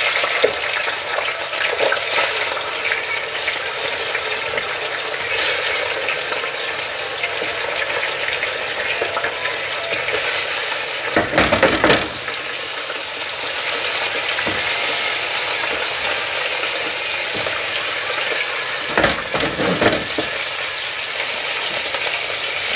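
Food sizzling steadily in a frying pan, with two louder stretches of stirring about eleven and nineteen seconds in.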